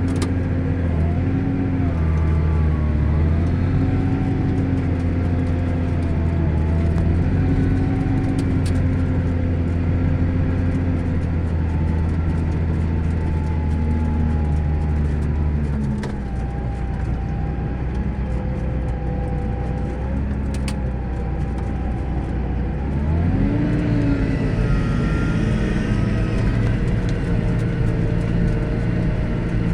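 John Deere 8410 tractor's six-cylinder diesel engine running under steady load; about halfway through its note drops, and about three-quarters of the way in it revs sharply back up.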